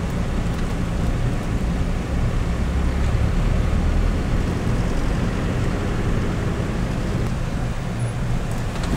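Land Rover driving, heard from inside the cabin: a steady low rumble of engine and tyres.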